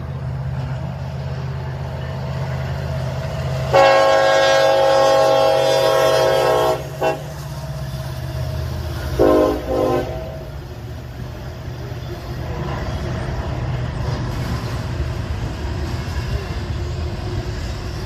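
Norfolk Southern diesel locomotive's five-chime air horn sounding one long blast of about three seconds, a very brief tap, then a short blast, over the steady low rumble of a double-stack intermodal freight train rolling past.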